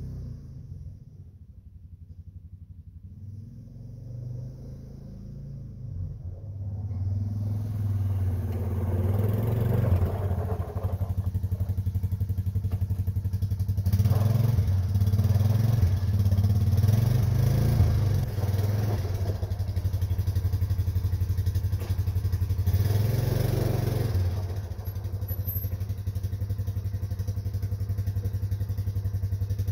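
A vehicle engine running, quiet at first and then coming up about seven seconds in, revving up in several surges before settling back to a steady idle near the end.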